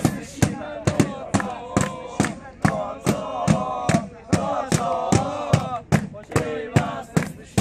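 A group of men chanting together in celebration over a large drum struck on a steady beat, about two strokes a second, with hand clapping.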